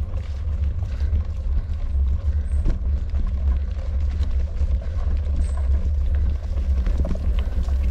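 Mountain bike rolling along a dirt and gravel trail, heard through a handlebar-mounted camera: a heavy, steady low rumble with many small clicks and rattles from the tyres and bike over the ground.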